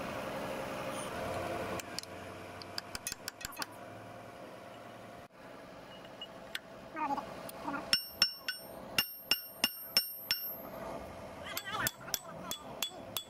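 Hammer blows on steel as a steel pin is driven into the front axle steering knuckle bore of a Komatsu GD755 grader. A few light taps come first, then from about eight seconds in a run of sharp ringing metal strikes about three a second, then more lighter taps near the end.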